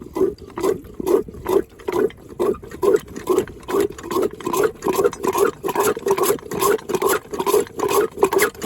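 Antique hand pump being worked fast, each stroke a squeaking, sucking sound at about three strokes a second. The pump is drawing air and has not yet been primed with enough water.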